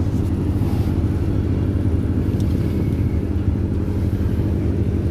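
Tugboat's diesel engine running steadily under way, a low, even drone with a constant hum.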